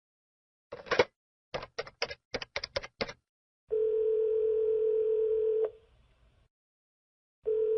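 A telephone call being placed: a quick run of about eight clicks, like phone keys being pressed, then the ringback tone ringing twice, each ring a steady hum of about two seconds with a pause between.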